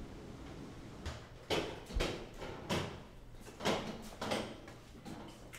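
Footsteps of several people on a hard hallway floor: a string of sharp, uneven steps, one every half second to a second.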